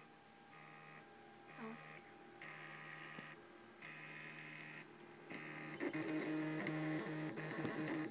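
Printrbot Simple 3D printer running during a print: its stepper motors whine in short runs that start and stop as the print head moves back and forth. The sound gets louder from about six seconds in, with quick ticking.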